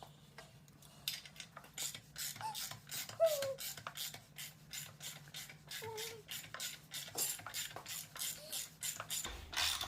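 Metal hand tools being handled on an engine: a run of irregular clicks, taps and scrapes, several a second, with a couple of brief squeaks.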